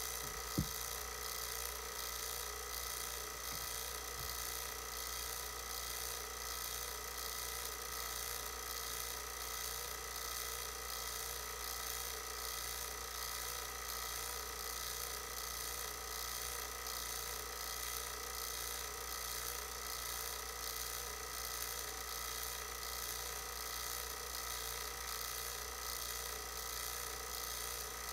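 Electric vacuum pump running steadily, pulling a vacuum on a jar that holds a little water and ice, with a steady motor hum and whine. One sharp click comes about half a second in.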